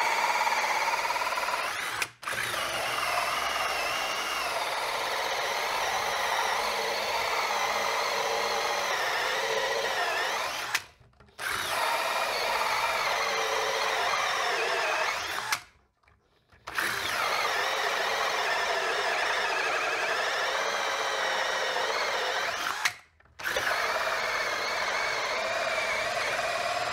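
AEG 18 V cordless drill-driver turning a 100 mm hole saw through a thick wooden board, its motor running under load with a wavering pitch. It stops briefly four times, the longest pause about two-thirds of the way through, and each time spins up again.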